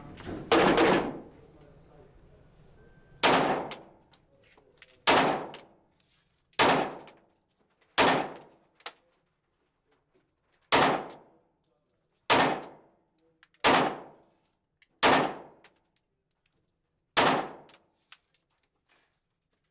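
A custom Glock 19L pistol firing one magazine, about ten shots spaced one to two seconds apart, each echoing in an indoor range, with faint clinks between shots. The pistol cycles every round without a malfunction.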